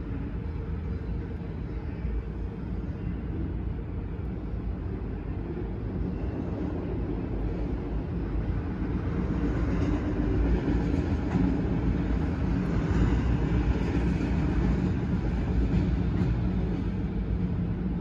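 CSX freight train's autorack cars rolling through a grade crossing: a steady noise of steel wheels on rail that grows louder about halfway through.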